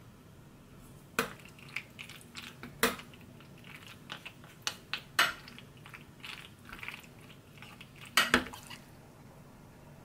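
A metal spoon and a wooden spoon stirring mayonnaise-dressed macaroni in a white dish: scattered clicks, knocks and scrapes of the spoons against the dish. The sharpest knocks come a little after a second in, near three seconds, at five seconds and twice around eight seconds.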